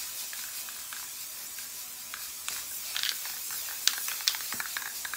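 Aerosol spray can hissing in one continuous spray, with scattered small clicks, as a coat is sprayed onto a direct-to-film car mat.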